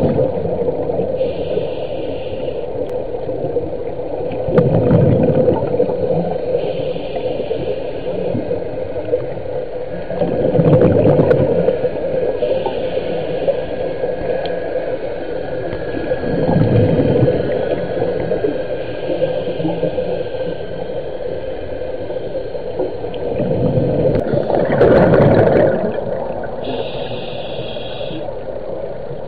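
Underwater ambience: a low steady drone with slow surging swells every six to eight seconds, and faint short high tones in between.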